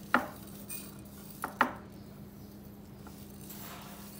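Sharp clinks of kitchenware, with a metal spoon, a stainless steel bowl of salt and a glass baking dish in play: one just after the start and two in quick succession about a second and a half in. Faint rubbing of coarse salt into raw beef follows near the end.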